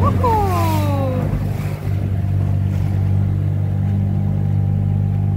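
Outboard motor of a small river boat running at a steady speed, a low even drone. Near the start a loud call slides down in pitch over about a second.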